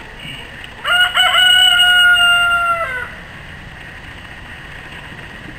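A rooster crowing once, about a second in: a broken, stuttering start, then a long held note that drops away after about two seconds.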